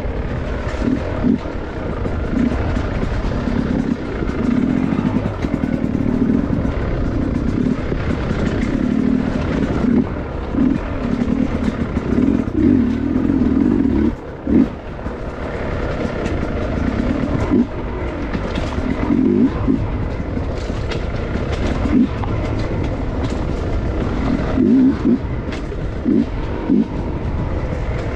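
Dirt bike engine heard close up from the rider's own machine, the throttle opened and shut in short bursts again and again as it picks down a steep rocky trail, with a brief drop in sound about halfway through.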